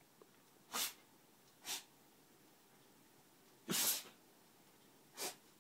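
A beagle sneezing four times, each sneeze a short burst; the third is longer and the loudest.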